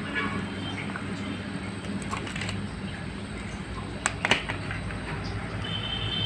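Metal ladle clicking against the pot and a plastic dish while fish pieces are lowered into simmering broth, with the two sharpest clicks about four seconds in, over a steady low hum.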